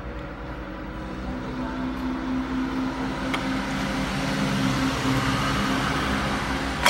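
A motor vehicle engine hum that builds over the first few seconds and then holds steady. A single sharp click comes near the end.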